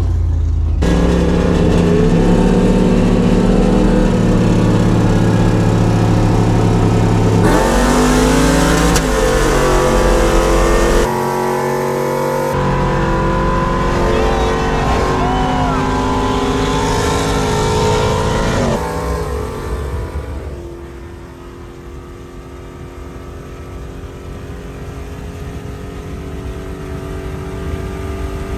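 Cammed LS V8 pickup engines under hard acceleration as the trucks race side by side, heard from inside the cab. The sound jumps abruptly several times. In the last third the engine drops quieter, then slowly builds again.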